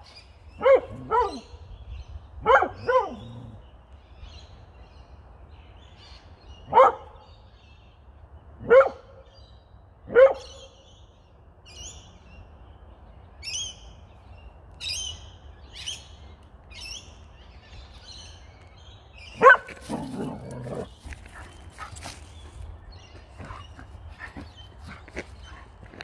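Kelpie barking: eight sharp single barks, the first four in two quick pairs, the next three a couple of seconds apart, then a long pause before a last bark about three quarters of the way through.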